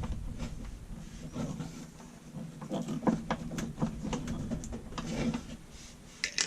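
Scattered light clicks and taps from a hand tool and metal parts being handled on the underside of a washing machine, over a faint steady low hum.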